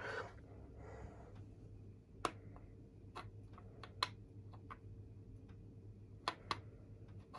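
Faint steady low hum with a handful of sharp small clicks and taps, the clearest a little after two seconds, around four seconds, and a pair a little after six seconds: small tools and parts being handled on a workbench.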